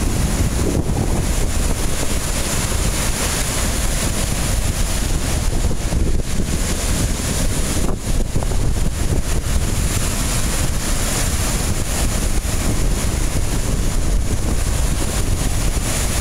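Strong wind buffeting the microphone, over lake waves breaking on the shore, a steady loud rushing noise heavy in the low end.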